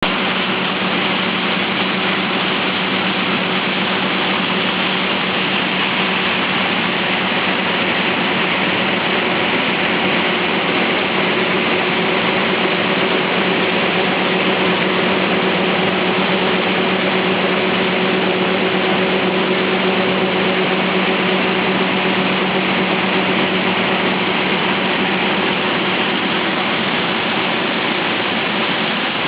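Farm machinery working a corn harvest: a heavy engine running steadily at constant speed, with a steady hum under a dense hiss of machine noise.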